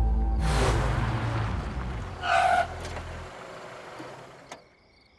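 Soundtrack music fading out, with a crash about half a second in and a short, loud pitched cry a little after two seconds. Near the end come faint crickets chirping.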